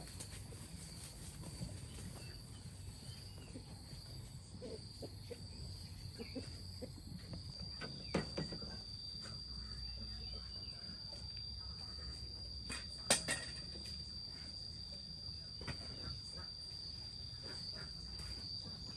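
Insects chirring steadily in one continuous high-pitched drone, with a couple of sharp knocks about eight and thirteen seconds in.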